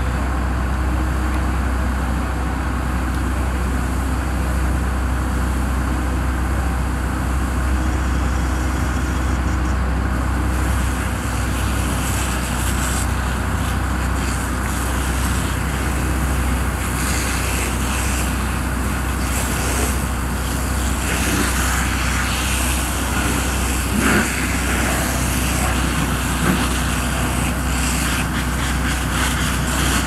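Steady drone of road traffic and idling vehicle engines, with a constant low rumble, tyre hiss from passing cars rising and falling, and a brief bump late on.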